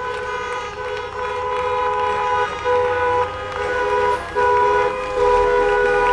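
Car horns honking repeatedly in long steady blasts with brief gaps, louder toward the end: motorists honking in support of a protest.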